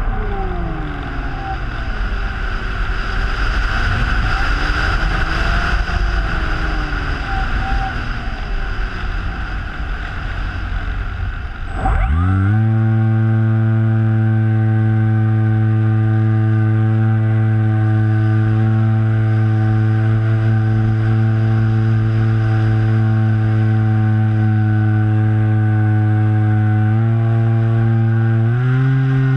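Electric motor and propeller of an RC flying wing, heard from a camera taped to the wing, with wind rushing past. For the first dozen seconds the motor whine wavers up and down under the wind. About twelve seconds in, the motor spins up sharply to a steady, loud drone, which steps up in pitch twice near the end.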